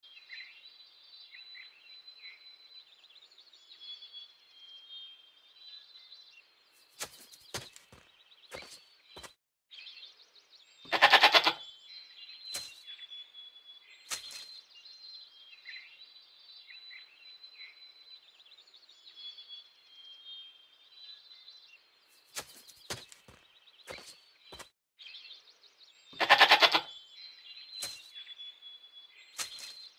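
Goat bleating twice, each call about a second long and about fifteen seconds apart, over faint high bird chirping. A few sharp clicks come in the seconds before each bleat.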